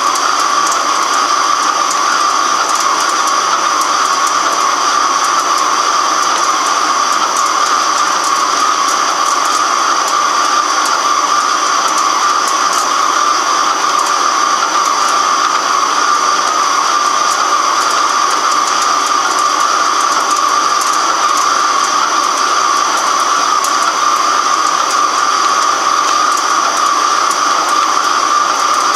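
Microcut BNC-6500 heavy-duty flat-bed lathe turning a large metal workpiece: a steady, unbroken machining noise with a constant high whine.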